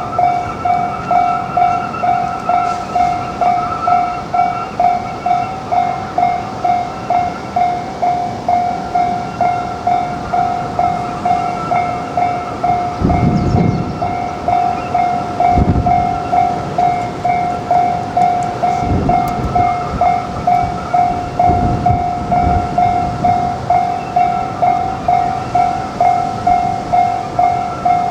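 Japanese level crossing warning bell ringing its steady kan-kan, about two to three strokes a second. A train passes through the middle, its wheels giving several low, heavy thumps over the rail joints.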